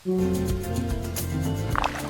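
Background music: a new, quieter cue begins right after the previous song cuts off, with a few short accents near the end.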